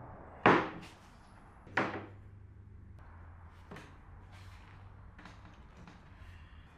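A wooden board set down on an MDF table top: a sharp knock about half a second in and a second, lighter knock over a second later, then a few faint taps as a metal square is placed against the board.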